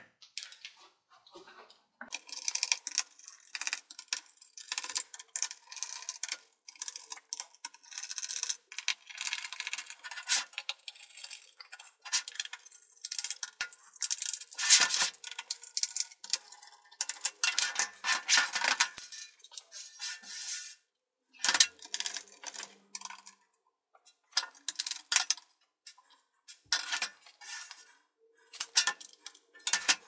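A small screwdriver turning out the tiny screws on the plastic underside of a Lenovo ThinkPad X230T laptop, in irregular runs of scratchy clicks. Small metal clinks come as the loose screws are picked out and set down.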